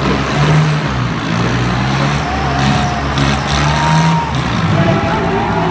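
Farm tractor's diesel engine running and revving up and down as it is driven.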